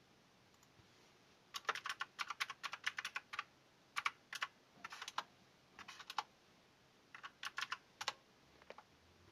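Typing on a computer keyboard: runs of quick keystrokes in short bursts with brief pauses between, starting about a second and a half in and stopping a little after eight seconds.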